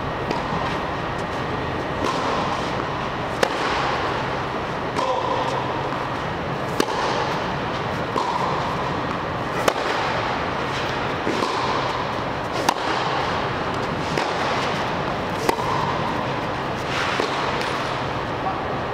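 Tennis balls struck by racquets in a baseline rally: a sharp crack about every one and a half seconds, the nearer player's strikes louder than the far player's. A steady hum runs underneath.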